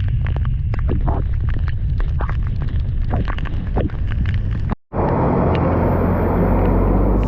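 Heavy rain: close raindrops tapping in quick irregular clicks over a low rumble, then, after a brief cut just before five seconds in, a dense steady rush of downpour.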